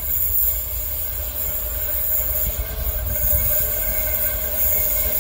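Approaching freight train hauled by Spoornet class 18E 3 kV DC electric locomotives, running steadily round a curve: a low rumble with a faint steady whine that grows a little stronger about halfway through as the train draws closer.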